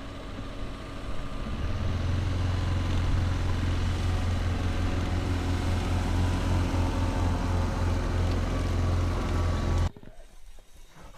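Outboard motor on an inflatable boat running under way, a steady low drone that grows louder about a second and a half in. It cuts off abruptly near the end, leaving only faint background.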